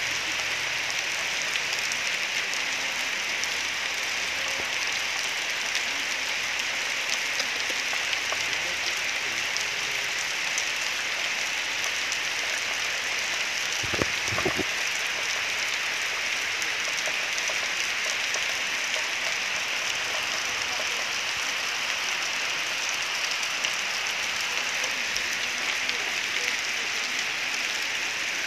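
Steady hissing background noise throughout, with a few brief bumps about halfway through as the camera is handled.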